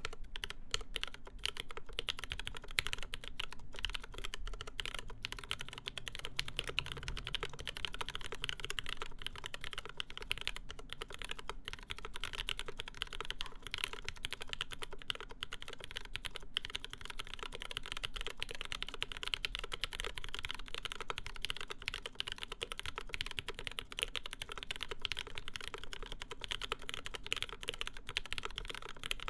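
Continuous fast typing on a mechanical keyboard with lubed linear MX Black switches fitted with UHMWPE stems, mounted on an aluminum plate and capped with GMK keycaps. A steady stream of dense key clacks.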